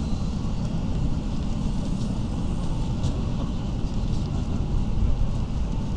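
City street ambience: a steady low rumble of road traffic, with a few faint ticks.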